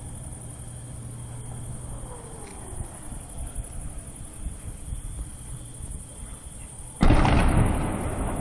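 An incoming artillery shell whistles faintly, falling in pitch, about two seconds in. About seven seconds in a shell bursts with a sudden loud blast that rumbles away slowly. Crickets chirr steadily throughout.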